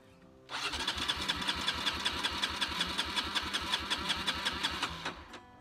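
Honda XLR125R's single-cylinder engine spun over on the starter for a hot compression test, with a gauge in the spark-plug hole: a steady, evenly pulsed cranking that starts about half a second in and stops just before the end. The gauge reads 10.5 kg/cm², below the 14 kg/cm² the maker gives for a new engine.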